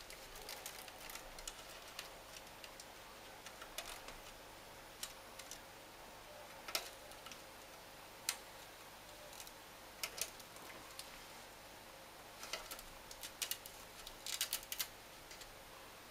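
Scattered light clicks and taps of a power-supply cable being worked and pushed through a computer case by hand, irregular, with a quick cluster of clicks near the end, over a faint steady hum.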